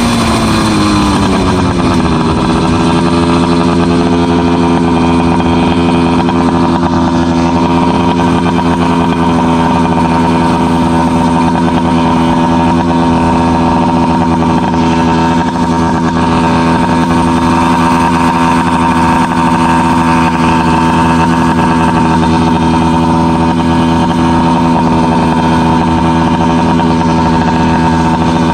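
FM-80 two-stroke motorized-bicycle engine with a small expansion chamber: its revs fall over the first two seconds as the bike slows, then it idles steadily.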